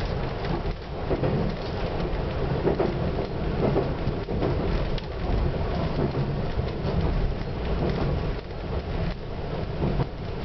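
Diesel limited express train running along the track, heard from inside the car behind the driver's cab: a steady low rumble of engine and wheels on the rails, with irregular knocks and clatter.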